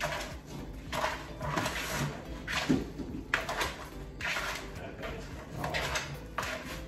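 Hands squishing and kneading a wet raw meatball mixture of ground meat, ricotta and breadcrumbs, in irregular squishy strokes about once a second.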